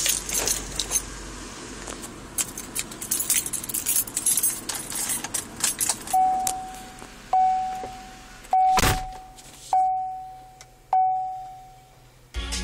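Keys jangling and rattling for several seconds, then a car's warning chime dinging five times at an even pace, each ding fading out, with a single thump partway through. A fast, even rattling starts just before the end.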